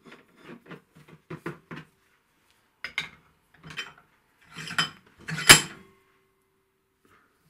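Metal clinking and knocking as a metal rod is threaded into a Noga magnetic base and the base is handled: a run of light clicks, then a few louder knocks, the loudest about five and a half seconds in, ringing briefly.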